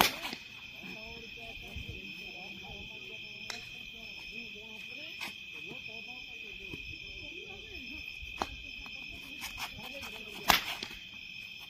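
Sharp cracks of a cricket bat striking a plastic ball, one right at the start and a louder one about ten and a half seconds in. Behind them, night insects chirr steadily and distant voices murmur.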